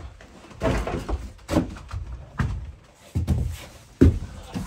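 A series of hollow thumps and knocks, about one a second, in a small room.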